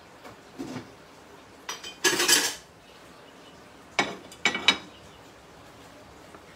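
Dishes clattering: a plate and utensils knocking and scraping, with a longer rattle about two seconds in and three sharp clinks about four seconds in as the plate is set down on the gas stove's iron grate.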